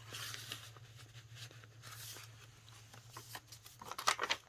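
Soft rustling and handling of paper: journal pages and card stock being moved and turned, with a few short clicks near the end.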